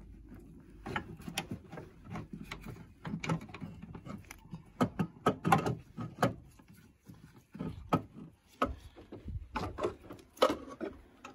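A replacement car alternator being manoeuvred into a tight engine bay, giving irregular metal clunks, knocks and scrapes as it bumps against surrounding parts and its mounting bracket.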